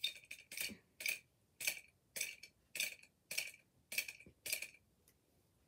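Hard plastic Lego Technic digger parts clicking as the boom and bucket arm are moved, about two crisp clicks a second, nine in all, stopping near the end.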